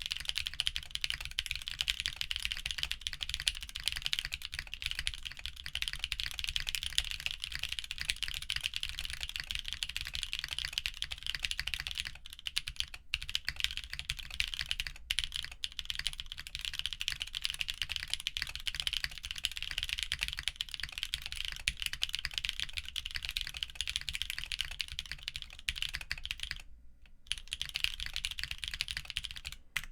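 Continuous fast typing on a Moment mechanical keyboard with linear switches (Kailh Burgundy stems in MX Black housings, lubed with GPL 107), a polypropylene plate and PBT keycaps: a dense stream of keystroke clacks. The typing stops briefly about 27 seconds in.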